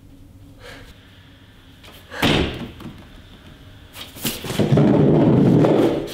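A single sharp thud about two seconds in, then near the end about a second and a half of loud scraping rustle.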